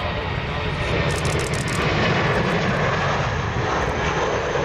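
Airbus A380's four Rolls-Royce Trent 900 jet engines at taxi power: a steady jet rumble and hiss that grows a little louder from about a second in as the aircraft approaches.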